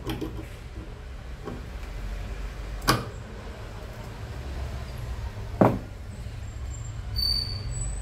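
Hands handling wire connectors and a small plastic part inside an opened microwave oven: two sharp clicks about three seconds apart, with a few fainter ones, over a steady low hum.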